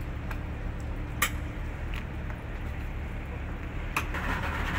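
Yamaha two-stroke outboard motor running at a steady idle, a low rumble, with a sharp click about a second in and a knock near the end.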